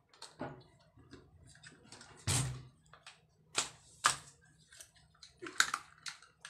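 Scattered plastic clicks and knocks from a toy RC rock-crawler truck being handled and turned over while its battery pack is taken out, with a heavier knock a couple of seconds in.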